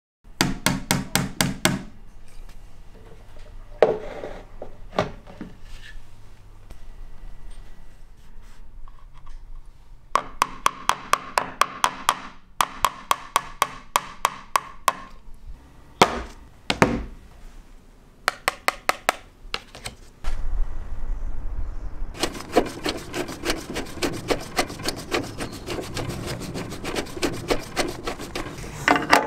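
A run of separate workshop tool sounds, among them a hammer tapping a nail into a wall with quick, regular strikes, about two or three a second.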